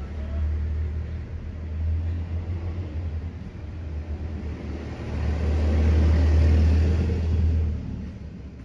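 A motor vehicle going past, a low rumble that swells about five seconds in and fades again near the end.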